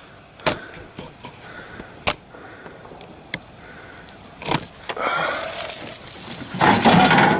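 A microwave oven's sheet-metal casing being handled and pulled apart: a few sharp metal clicks, then from about four and a half seconds a run of metallic rattling and scraping that grows loudest near the end.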